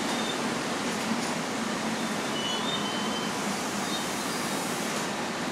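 Long Island Rail Road M7 electric multiple-unit train rolling slowly alongside the platform as it arrives, a steady noise with a few faint, brief high squeals.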